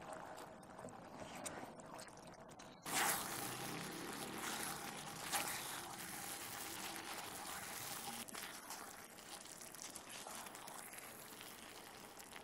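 Tomato sauce simmering and bubbling in a frying pan as it reduces and thickens, with a silicone spatula stirring through it. It grows louder about three seconds in.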